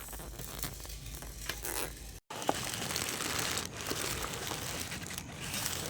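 Foley crumpling and crinkling: a dense, crackly rustle with many small clicks, broken by a split second of dead silence a little over two seconds in.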